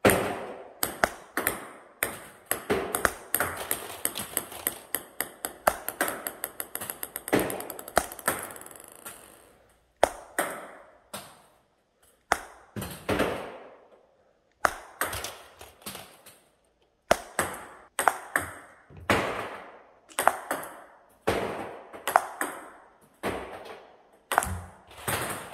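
Table tennis ball being struck with a racket and bouncing on the table: sharp hollow clicks in irregular runs with short pauses, each ringing briefly in the room.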